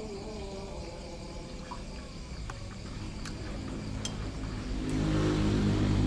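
Night insects chirping steadily, with a few light clicks of skewers and cutlery on plates. A low droning hum swells louder near the end.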